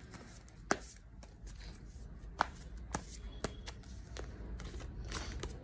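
A deck of tarot cards being shuffled by hand: soft rustling of the cards with irregular sharp snaps as cards slap against each other.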